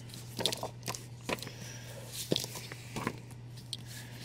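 Short, quiet rustles and taps of comic books being handled and pulled from a cardboard shipping box, about half a dozen scattered through, over a steady low hum.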